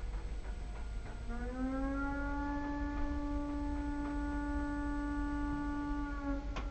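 Volunteer fire brigade call-out siren sounding one long blast. It comes in about a second in, rises briefly in pitch, then holds a single steady tone for about five seconds before stopping.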